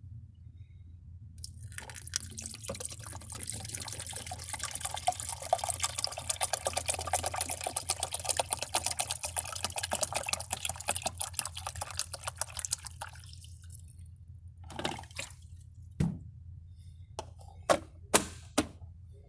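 Coffee maker brewing: water sputtering and dripping for about ten seconds over a low hum, then dying away. Near the end come a few sharp clicks and knocks.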